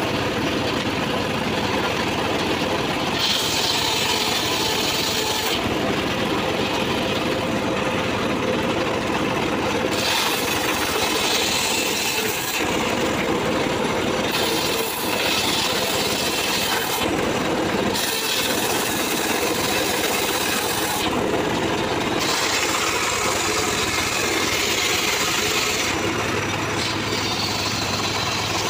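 Homemade table-mounted circular saw ripping teak into boards. The saw runs steadily, and the cutting noise swells and drops every few seconds as the blade goes through the wood in repeated passes.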